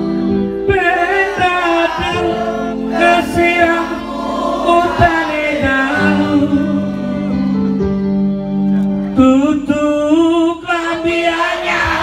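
Live band music played through a PA, with a male singer's amplified voice over held bass and keyboard notes and drum beats, and the crowd singing along.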